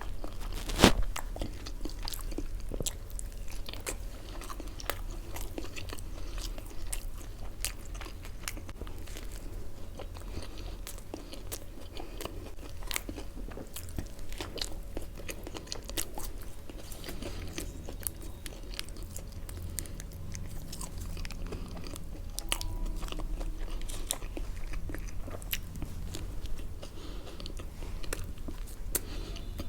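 Close-up eating sounds: biting and chewing food, with many small crisp crunches and clicks and a sharper one about a second in, over a steady low hum.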